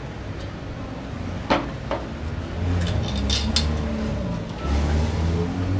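Glass clinking as a glass bottle and drinking glass are handled and the bottle is set down on a metal table: two sharp clinks about a second and a half in, then a quick cluster of clinks around three seconds in. A motor vehicle engine rumbles underneath.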